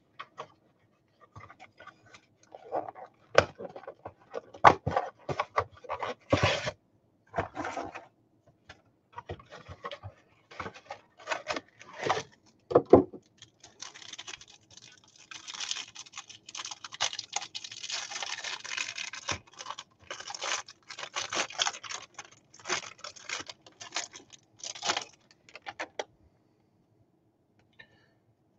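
Baseball card packs being opened and sorted by hand: plastic wrapper crinkling and tearing, and cards flicking and sliding against one another in irregular bursts, with a longer run of crackling midway. The handling stops a couple of seconds before the end.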